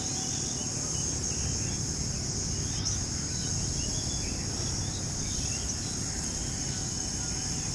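A steady, high-pitched insect chorus drones on without a break, over a low rumble, with a few faint bird chirps scattered through it.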